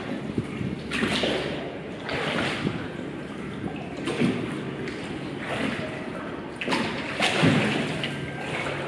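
Rowboat oars pulling in a steady rhythm, about one stroke every second and a half: each stroke a low knock of the oars in their oarlocks with the splash and swirl of the blades in the water.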